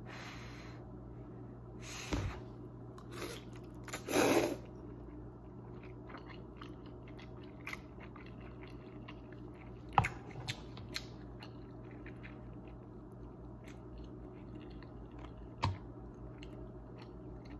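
A person eating a forkful of Korean black bean noodles and chewing it. A couple of short noisy bursts come in the first five seconds, the loudest about four seconds in, and there are sharp clicks about ten seconds in and near the end, over a low steady hum.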